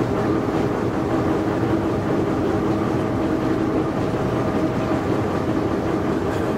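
Diesel locomotive engine running steadily as the train rolls along the rails, a continuous drone with a steady held tone.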